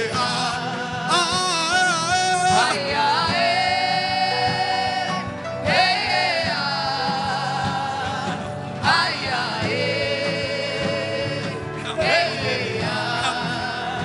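Gospel worship singing: a voice holds long notes with vibrato and slides between phrases, over a steady instrumental accompaniment.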